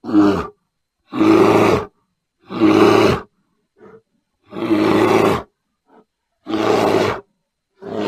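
Grizzly bear roaring in a run of about six short, loud roars, each under a second long, separated by clean silent gaps.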